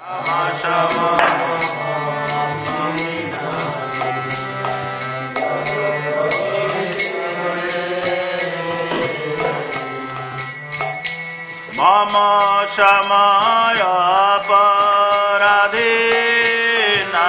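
Devotional chant music: a sung mantra over a steady low drone, with small hand cymbals clinking in a quick, even rhythm. A stronger singing voice comes in about twelve seconds in.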